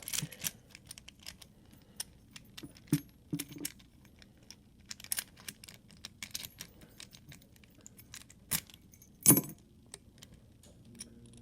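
Small metal clicks, taps and rattles of a dimple padlock and its parts being handled while it is put back together, with a few louder knocks, the loudest about nine seconds in.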